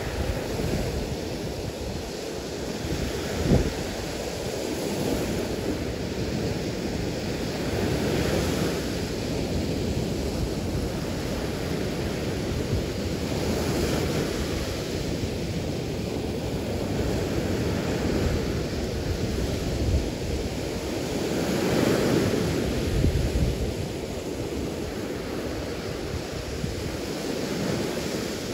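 Gulf of Mexico surf breaking on a sandy beach, the wash swelling and easing as waves roll in every several seconds.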